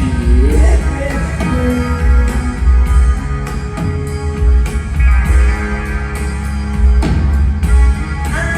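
Live rock band playing loud: electric guitar over bass and a drum kit, with a steady beat of heavy, boomy kick-drum thuds.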